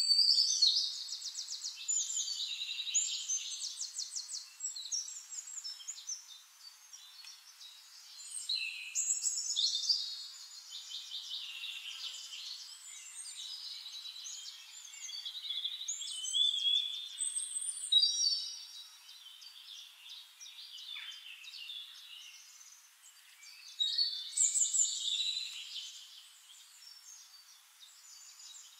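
Birds singing: long, high phrases with fast trills, coming in bursts about every eight seconds over a faint steady background hiss.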